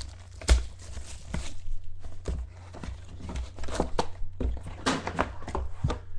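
Handling a trading card box and its packs: scattered taps, knocks and rustles of cardboard and wrapping, the sharpest knock about half a second in, over a steady low hum.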